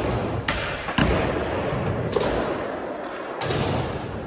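Skateboard wheels rolling over a skatepark bank ramp, broken by several sharp clacks and thuds of the board, the loudest about a second in.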